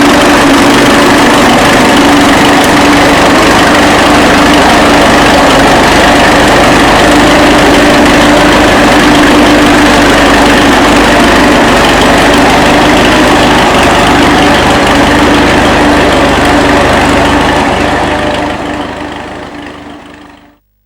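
1935 Fordson tractor's four-cylinder engine running steadily under way, loud and even, dying away over the last couple of seconds.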